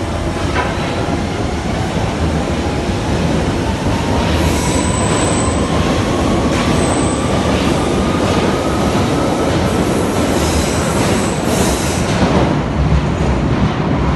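London Underground Central line train (1992 stock) pulling out of the platform, loud and steady: rumbling wheels on rail with a whine that rises slowly in pitch as it gathers speed, and brief high squeals about five and seven seconds in.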